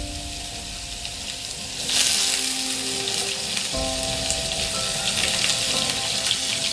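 Onions sizzling as they fry in hot raw mustard oil, the sizzle growing louder about two seconds in.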